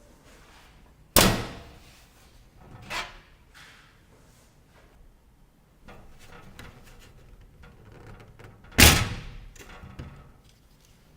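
Two loud sharp knocks, about a second in and near the end, each ringing out briefly, with a few lighter knocks between: hard objects being handled and set down or shut.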